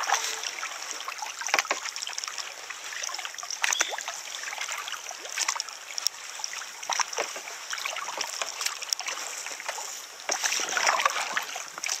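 Double-bladed kayak paddles dipping and pulling through calm river water in a string of short strokes, with splashing and dripping from the blades.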